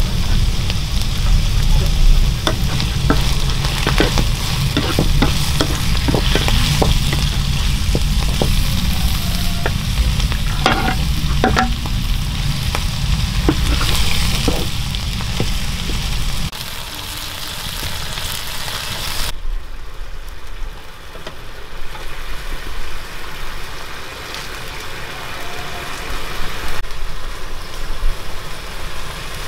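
Noodles sizzling as they are stir-fried in a wok, a wooden spatula stirring with repeated sharp clicks and scrapes against the pan in the first half. A low rumble under it stops abruptly a little past halfway, leaving a quieter sizzle.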